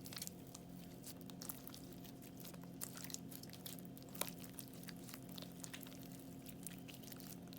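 Crunchy slime being handled, giving many irregular small crackles and clicks over a faint steady hum.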